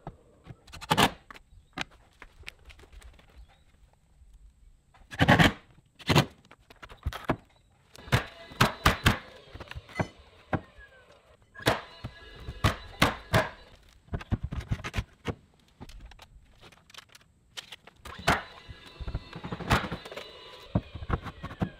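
Sharp knocks and clatter of manufactured stone-veneer panels being handled and fitted against a wall, some singly and some in quick clusters of three or four, over faint background music.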